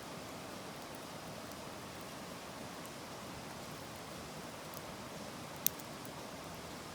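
Campfire burning in a fire stand: a steady low hiss with faint crackles and one sharp pop late on.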